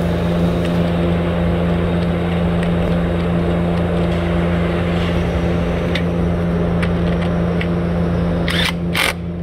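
A steady low mechanical hum, with two short bursts from a cordless power tool near the end, tightening the bolt of a freshly replaced ignition coil.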